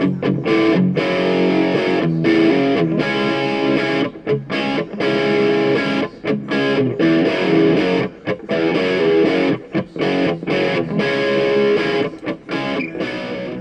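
Outro music: distorted electric guitar playing a rhythmic riff.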